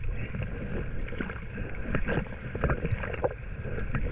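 Small splashes and water lapping against a kayak close to the microphone, in many short irregular slaps over a steady low rumble.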